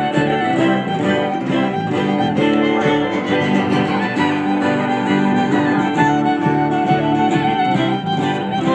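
Background music led by bowed strings such as violin or fiddle, with a steady pulse of notes.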